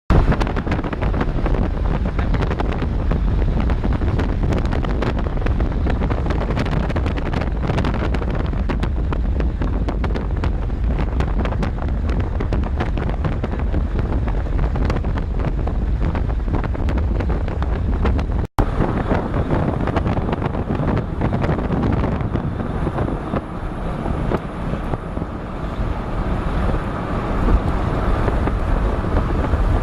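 Storm wind and rain, with heavy wind buffeting on the microphone and a constant low rumble. The sound drops out for an instant about eighteen seconds in, then goes on with a little more hiss.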